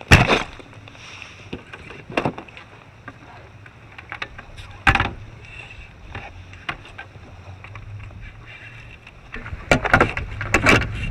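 Several sharp knocks and thumps of gear being handled on a kayak over a steady background of wind and water. The loudest knock comes right at the start, another about five seconds in, and a cluster comes near the end.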